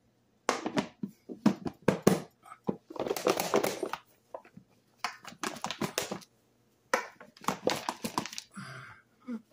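Raw chicken wings shaken in seasoned flour inside a lidded blue plastic container, the pieces tumbling and knocking against the plastic in several bouts of shaking with short pauses between them.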